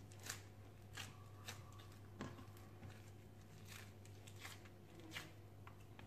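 Several faint, short taps and scuffs of a hand pressing and kneading soft homemade dough-like clay against a granite countertop, over a low steady hum.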